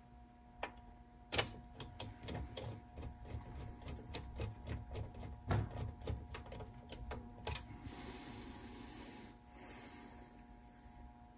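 A screwdriver and small screws clicking and tapping irregularly against a Sony TC-WR950 cassette deck while its head shields are being screwed down, followed from about eight seconds in by a few seconds of steady rasping as a screw is driven in.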